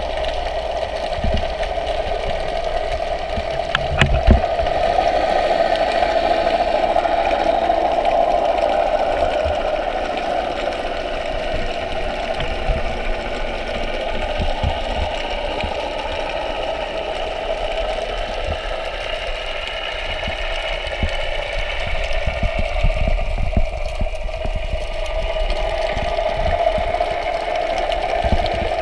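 Steady mechanical drone with a faint whine, heard underwater, with scattered low bumps, the loudest about four seconds in.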